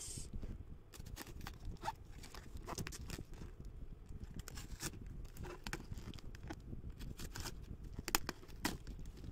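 A craft knife slicing and scraping through packing tape on a cardboard parcel, with irregular taps, scratches and rustling as the tape is picked at and peeled back and the box is handled.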